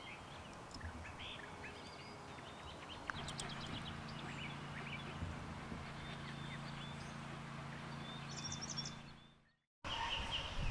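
Faint songbird chirps and calls scattered throughout, with a steady low hum joining about three seconds in; the sound breaks off for a moment near the end.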